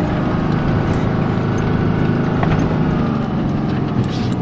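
Pickup truck's engine running and revving up and down, heard from inside the cab as it drives over snow, with a short hiss near the end.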